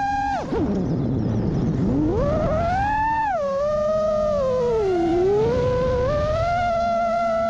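Brushless motors of a 5-inch FPV freestyle quadcopter whining in flight, the pitch following the throttle: it drops sharply about half a second in, climbs again by about three seconds, dips near five seconds, then holds steady.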